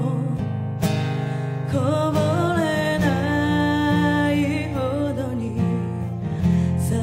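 A woman singing a slow ballad live to her own acoustic guitar, with long held notes that waver in vibrato over steady guitar chords.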